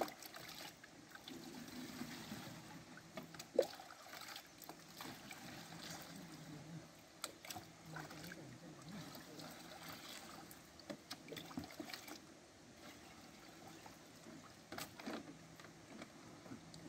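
Water trickling and splashing faintly in a plastic bucket as a green plastic watering can is dipped and filled, with scattered light knocks of plastic and one sharper knock about three and a half seconds in.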